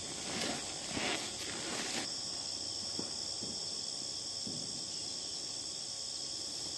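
Steady, high-pitched insect chorus, a continuous trill, with a few brief rustles in the first two seconds.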